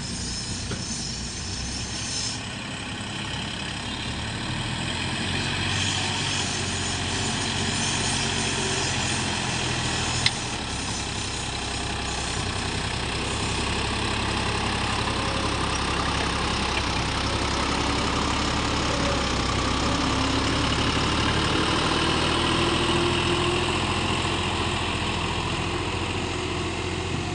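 John Deere tractor's diesel engine running steadily under load as it pulls a mounted grader blade through dry, stony soil, a little louder after the first several seconds. There is a single sharp knock about ten seconds in.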